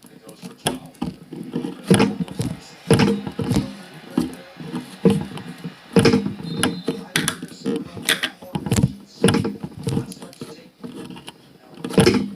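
Slime being squeezed and pressed in the hands, making irregular wet clicks and pops of trapped air, about one a second.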